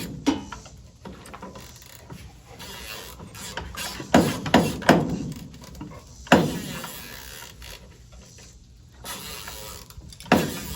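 Metal hand tools and engine parts knocking and clinking on a workbench, in about seven separate sharp knocks with a short ring, spaced irregularly, with a cluster of three near the middle.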